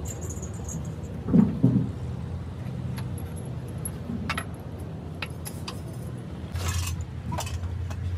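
Spanner and metal tools clinking and knocking against a Mercedes truck's engine and gearbox, with two loud knocks about a second and a half in and scattered sharp clicks after, over a steady low hum.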